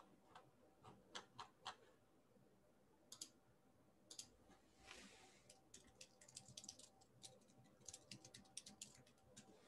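Faint clicks of a computer keyboard and mouse: a few scattered single clicks, then a quick run of keystrokes from about five seconds in, over a faint steady hum.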